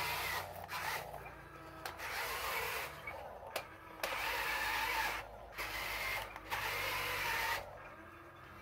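Electric drive motor and gearbox of a toy-scale radio-controlled CAT wheel loader whining in repeated spurts as it drives over dirt, the pitch rising and falling with the throttle and cutting out briefly between runs.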